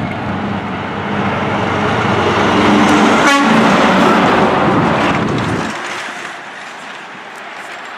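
Tractor-trailer passing close by, its engine and tyres loudest around the middle and the deep rumble falling away after about six seconds. Its horn sounds around the middle as a two-horn salute, a driver's thank-you.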